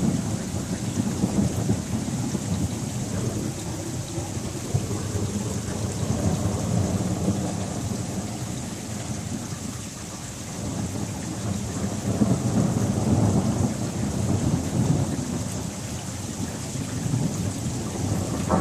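Thunder rolling in long, continuous low rumbles that swell and fade several times, over a steady hiss of rain falling.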